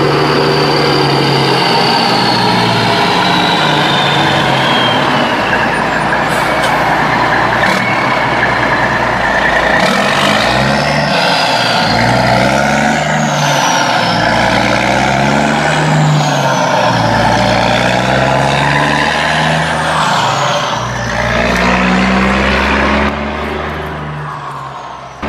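Heavy truck engine sound, steady at first, then revving up and down every couple of seconds from about ten seconds in. It is an added sound effect standing in for a plastic toy dumper truck, which makes no engine sound of its own.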